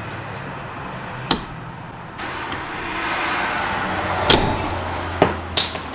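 Four sharp clicks of small parts being handled while a U-joint bearing cup is worked into place on a double cardan drive-shaft joint. They fall one just over a second in, one past four seconds, and a quick pair near the end, over a steady hiss.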